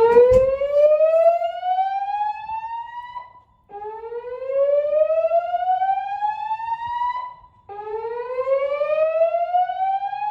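Gentex fire alarm speaker strobes sounding the voice-evacuation system's whoop tone: a loud tone sweeping up in pitch, heard three times with short gaps between. It is the evacuation signal played between the recorded "leave the building" messages.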